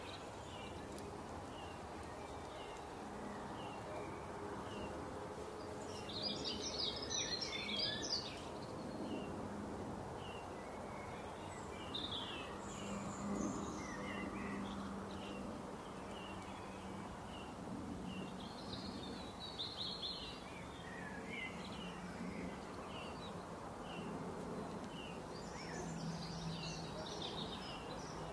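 Small birds chirping and singing, with short repeated chirps throughout and several louder bursts of song, over steady outdoor background noise and a faint low hum.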